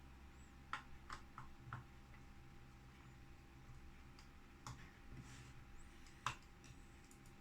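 A few faint, sharp clicks and taps of small metal parts and a screwdriver being handled during disassembly of a graphics card, three or four close together about a second in and two more further on.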